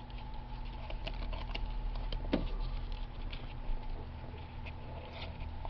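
Football trading cards flicked through one after another in the hands: a quick, irregular run of small card-stock clicks and slides, over a steady low hum.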